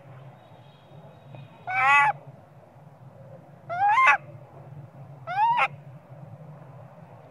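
Baby long-tailed macaque crying: three short, loud rising cries about two seconds apart. It is crying for its mother to nurse it, likely from hunger.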